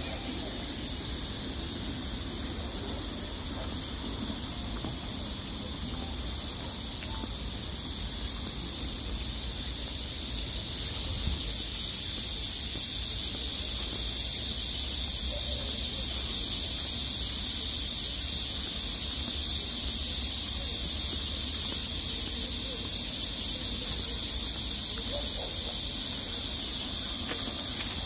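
Insect chorus: a steady high-pitched hiss that swells about eleven seconds in, then holds.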